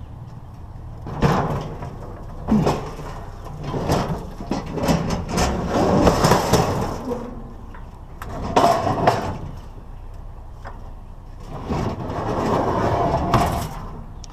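Scrap metal being handled and worked: irregular bursts of clanking and scraping with short pauses between them.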